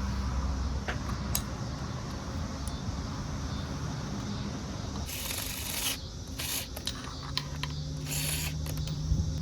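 Faint metal clicks and rubbing as the compressor's seal-cover bolts are threaded in by hand, over a steady low hum. Three short hissing bursts come about five, six and a half and eight seconds in.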